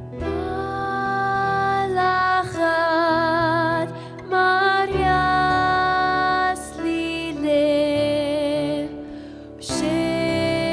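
A female soloist sings a slow hymn verse in Assyrian Neo-Aramaic, in phrases of long held notes with vibrato, over a low, soft instrumental accompaniment.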